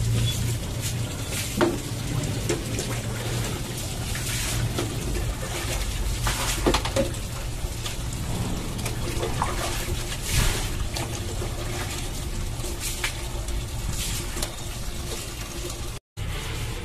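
Water running from a wall tap onto a tiled floor, with occasional splashes as water is poured from a plastic mug over a wet dog's coat.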